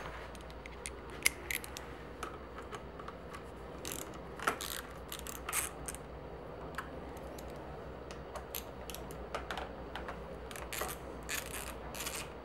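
Hand tools clicking on the bolts of a Shimano Deore front derailleur as the cable pinch bolt and then the frame clamp bolt are undone with hex drivers: scattered sharp metallic clicks, turning into quick runs of clicking near the end.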